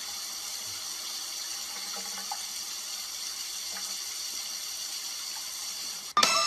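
Steady rushing noise of running water, as from a tap, unchanging until it cuts off near the end.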